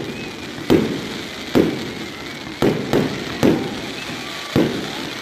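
Aerial fireworks shells bursting: about six sharp bangs over five seconds, irregularly spaced, each trailing off in a rolling echo.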